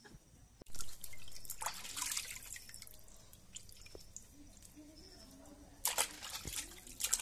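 Water splashing and dripping as hands rub and rinse raw duck pieces in a steel basin of water. It starts suddenly about a second in, eases off, and picks up again near the end.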